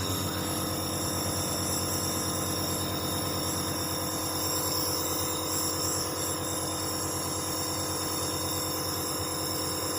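Dr Trust 401 compressor nebulizer's compressor running steadily with an even, rapidly pulsing hum, just switched on. The owner calls this noise level moderate and normal.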